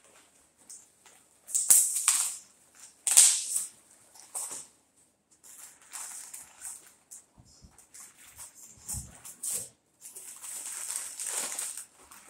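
Packaging rustling and crinkling in irregular bursts as items are unwrapped by hand, loudest about two and three seconds in and again near the end, with a soft low thump about nine seconds in.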